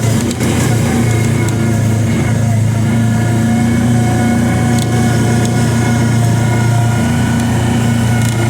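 Kawasaki Teryx 800 side-by-side's V-twin engine running steadily at low trail speed, with a few short clicks and knocks near the start.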